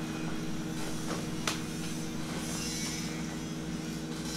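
A steady droning hum from a running machine or electrical appliance, holding one even pitch with a couple of faint clicks about a second and a half in.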